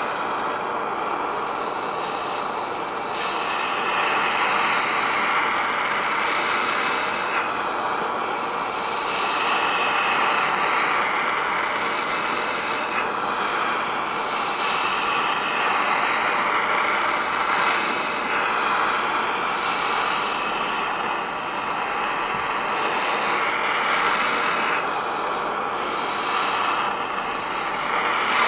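Heat gun blowing steadily on the engine's front cover, heating it so the sealant lets go and the cover comes off; the rushing air shifts a little in tone now and then.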